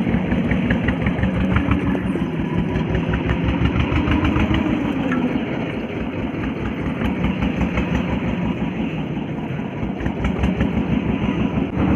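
Small fishing boat's outboard motor running steadily, with an even rapid firing beat.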